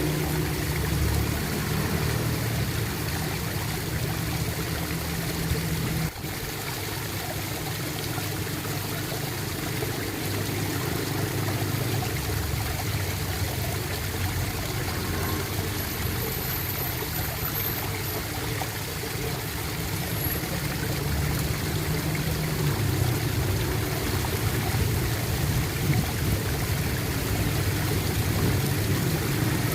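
Water gurgling and flowing continuously, with a sudden brief drop in level about six seconds in before the flow carries on.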